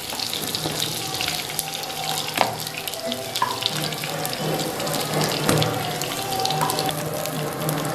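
Oil sizzling steadily in a frying pan with pieces of pointed gourd frying in it, with a few sharp knocks from a wooden spatula and from pieces being dropped into a steel bowl.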